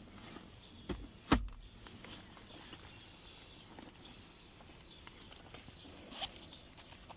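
One loud, sharp thump about a second in, with a few lighter knocks and clicks before and after it, over a faint outdoor background.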